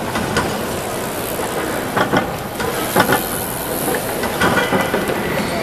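Steady din of a busy exhibition hall, with scattered short knocks and clicks.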